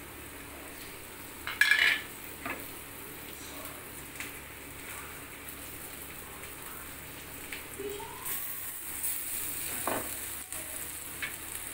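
Onions frying in oil in a metal kadai, sizzling while a ladle stirs and scrapes, with a few clinks and one sharp, loud clatter of metal against the pan about a second and a half in. Ground masala is being tapped out of a mixer-grinder jar into the pan, and the sizzle gets brighter toward the end.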